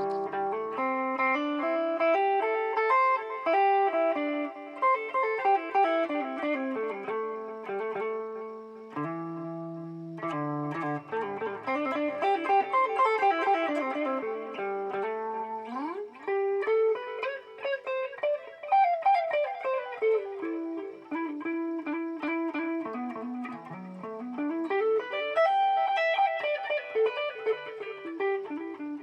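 Electric guitar played through a BOSS DD-8 digital delay pedal in Warp mode: melodic single-note lines whose echoes overlap and hang on, with notes sliding in pitch a little past halfway.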